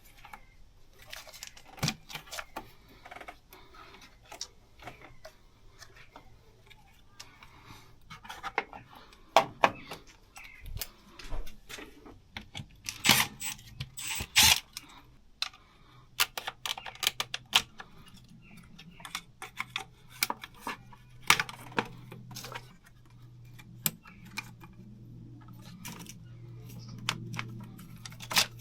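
Metal hand tools and parts clinking and clicking irregularly while the intake manifold is worked off a BMW B58 engine. A low steady hum comes in about halfway through.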